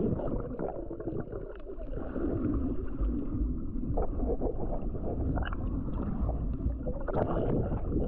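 Muffled underwater rumble and gurgling of moving water heard through a submerged GoPro camera, with scattered small clicks, swelling louder near the end.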